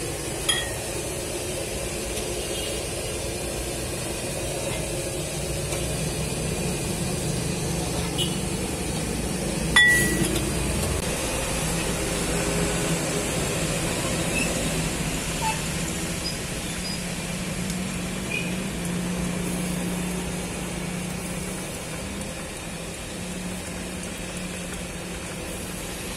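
Soup boiling in a large steel wok over a stove, a steady rush under a few sharp metal clinks of the ladle and utensils; the loudest clink, with a brief ring, comes about ten seconds in.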